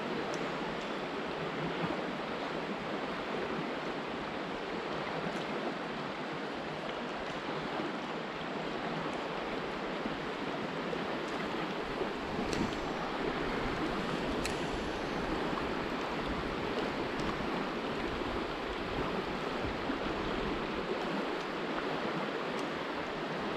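Shallow river flowing fast over a stony bed: a steady rush of water. A few faint clicks sound about halfway through.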